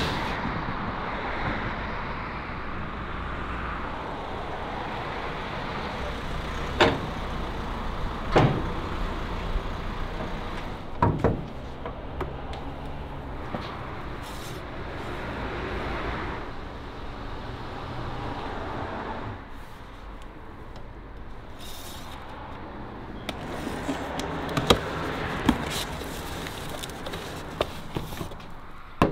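Steady workshop background noise, with a few sharp knocks and clatters from things being handled scattered through it.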